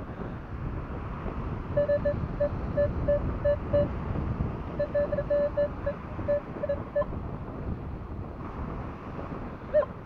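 Minelab Equinox 800 metal detector giving short beeping target tones in two runs, about two or three beeps a second, as the coil passes over a buried target. Steady wind noise on the microphone underneath.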